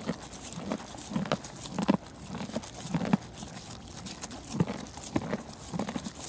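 Pony walking and grazing at close range: irregular soft thuds and crunches, a few a second, from its hooves and mouth on dirt and plants.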